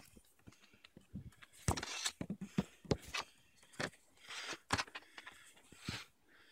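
Handling of a CD case and its booklet: scattered light clicks and short rustles of paper and plastic at irregular intervals.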